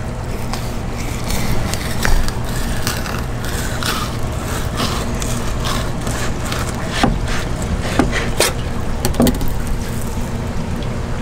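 Fillet knife scraping and ticking along the skin and the table top as a Bermuda chub fillet is skinned, over a steady low background rumble. A few short falling squeaks come in the second half.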